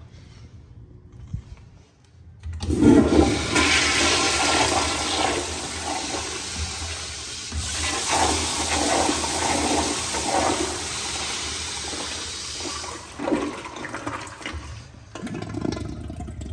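American Standard Afwall toilet bowl flushed by its flushometer valve. About three seconds in, a sudden loud rush of water starts and runs for about ten seconds, then dies down to a quieter trickle near the end.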